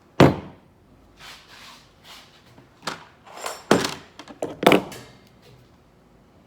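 Washing-machine parts being handled during a teardown: a loud knock just after the start, then a series of irregular clunks and short scrapes, the loudest about 3.7 and 4.7 seconds in.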